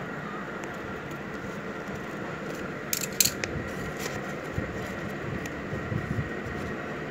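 Origami paper being handled and folded by hand, with a couple of sharp crisp crackles about three seconds in and softer rustles later, over a steady background hiss.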